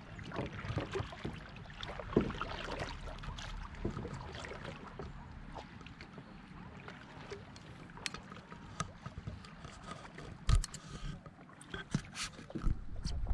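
Paddling on calm water: paddle strokes dipping and splashing, with water lapping around the paddleboards. Scattered small splashes and light knocks come through, the loudest about two seconds in and again near the end.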